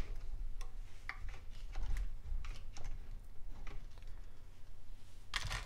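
Quick-grip bar clamp being tightened, its trigger clicking in irregular strokes as it pushes a slotted PVC tube down to compress a valve spring. A louder short noise comes near the end.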